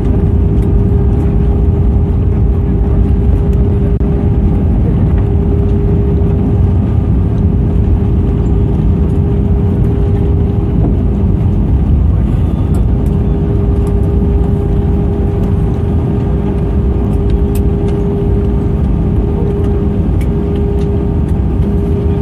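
Inside an airliner cabin during the landing rollout: a loud, steady rumble of the engines and the wheels on the runway, with a steady hum over it and a few light rattles, easing slightly near the end as the aircraft slows.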